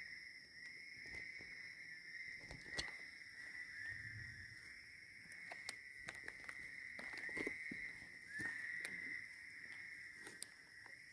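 Night chorus of insects: a steady high-pitched drone with chirps repeating every second or so, broken by a few sharp clicks and rustles.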